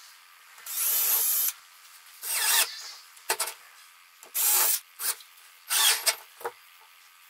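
Cordless drill running in about five short bursts, drilling and driving a screw with a washer through a webbing strap into a small wooden block. A few short sharp clicks fall between the bursts.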